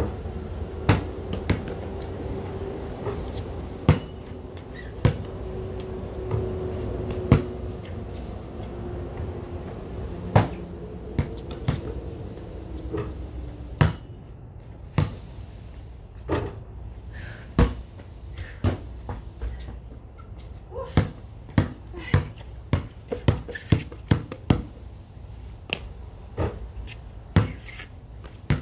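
A basketball's sharp knocks as it bounces on concrete and strikes the backboard and rim during shooting. The knocks come a second or more apart at first, then quicken to about two a second in the last third.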